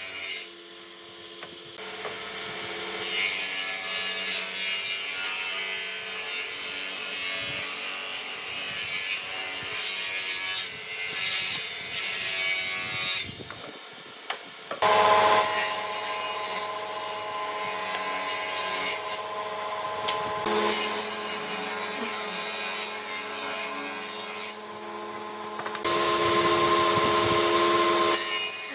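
Electric power tool working wood, a motor hum under a loud abrasive hiss, stopping briefly a few times and starting again.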